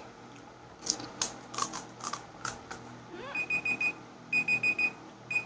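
A timer alarm beeping, in groups of rapid high beeps about once a second, starting a little past halfway: the five-minute time limit has run out. Before it come a few sharp crisp cracks of panipuri shells being broken open.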